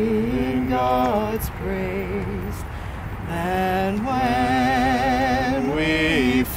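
A woman singing a slow hymn unaccompanied, holding long notes with a wide vibrato and pausing briefly between phrases.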